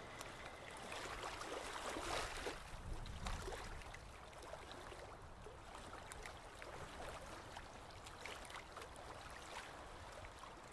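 Quiet water ambience, a soft even wash with many small ticks and trickles, swelling briefly about two seconds in.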